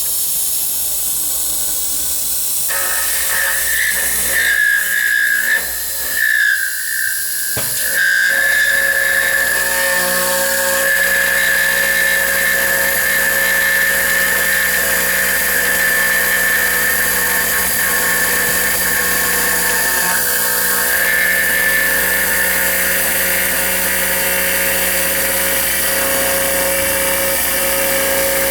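Copy router's high-speed spindle running with a steady high whine as its cutter mills a door-lock pocket in a steel door profile. The whine wavers between about three and eight seconds in, then holds steady.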